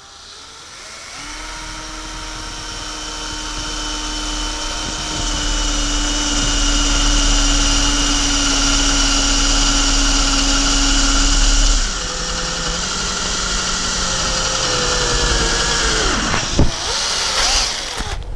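A drill-driver in second gear boring a twist bit through a thin 2 mm metal plate clamped over scrap wood. The motor runs steadily with the grind of the bit cutting metal. Its note drops about twelve seconds in, and it stops near the end.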